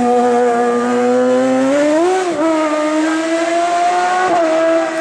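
Hill climb race car engine running hard at high revs, its pitch nearly steady. The pitch steps up with a quick wobble about two seconds in, and there is a short blip near the end.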